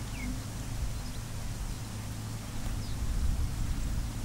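Steady low outdoor rumble with a faint hum underneath, and a faint bird chirp about three seconds in.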